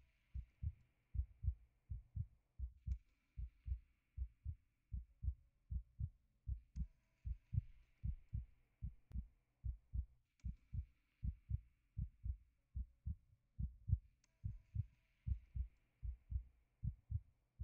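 Heartbeat sound: steady low thumps about two a second, with a faint hiss swelling every few seconds.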